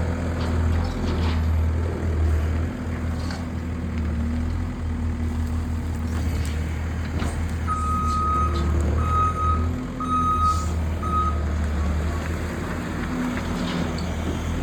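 New Holland L318 skid-steer loader's diesel engine running steadily, with occasional short clanks. About halfway through, its reverse alarm beeps four times, about a second apart, as the machine backs up.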